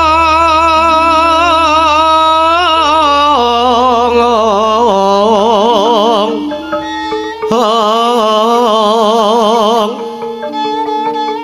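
A dalang singing a suluk, the puppeteer's sung mood song, into a microphone with gamelan accompaniment. He holds long notes that waver in a wide vibrato. A low drone underneath stops about two-thirds of the way through.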